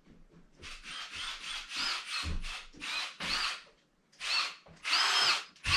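A Milwaukee M18 Fuel brushless impact driver running in about nine short trigger pulls, its motor whining up in pitch on each, with low thuds between the bursts.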